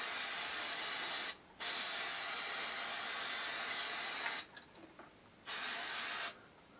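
Aerosol cleaner can spraying onto an engine oil pickup tube to clean it, in three bursts: one running until about a second in, a long one of nearly three seconds, and a short one near the end.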